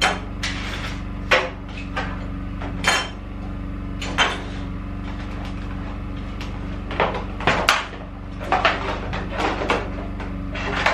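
A clear plastic case being opened and steel mounting brackets and bolts handled on a wooden workbench: scattered clicks, snaps and metallic clinks, over a steady low hum.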